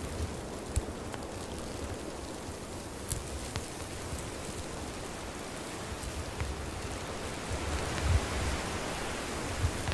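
Wood campfire burning with a steady hiss and a few sharp pops and crackles, and a low rumble around eight seconds in.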